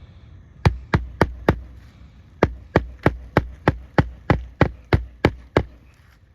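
Hammer striking repeatedly during an asphalt roof shingle repair, in quick even blows about three a second: four strikes, a pause of about a second, then eleven more.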